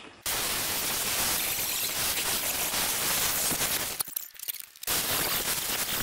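Angle grinder with a cutoff wheel cutting through heavy-duty steel C-channel bracket, a loud steady grinding screech. It starts a fraction of a second in, breaks off for under a second about four seconds in, then cuts again.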